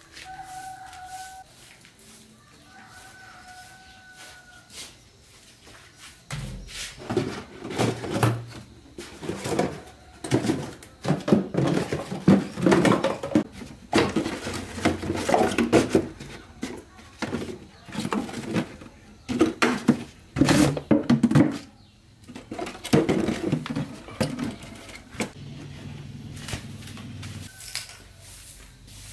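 Plastic bottles being picked up and knocked about in a wooden crate: a long run of irregular knocks, clunks and rattles.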